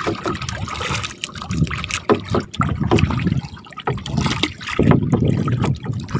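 Wooden paddles dipping and pulling through sea water beside a small paddled boat: irregular splashing and trickling water with each stroke.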